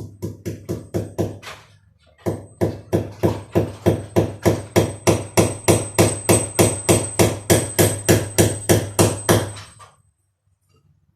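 Hammer blows struck steadily, about three a second: a short run, a brief pause, then a longer even run that stops near the end.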